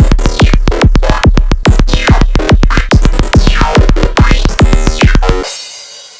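Electronic dance music: a fast drum-machine beat over heavy bass, with synthesizer sweeps rising and falling. About five and a half seconds in the beat and bass cut out, leaving a high noisy wash that fades away as a break.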